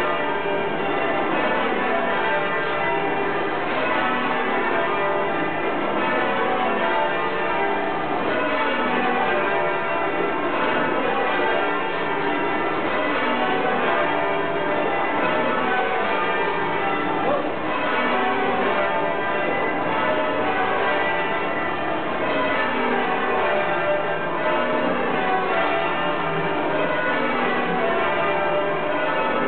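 Church tower bells being change-rung by a band on ropes. A continuous, even succession of bell strikes, each round stepping down from the highest bell to the lowest.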